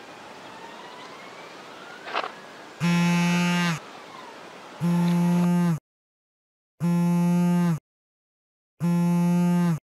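Four loud buzzy tones, each held about a second and starting every two seconds, after a few seconds of faint background hiss. Between the last tones there is dead silence.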